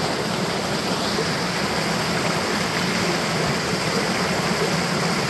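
Creek water rushing and splashing down a small cascade between boulders, a steady unbroken rush.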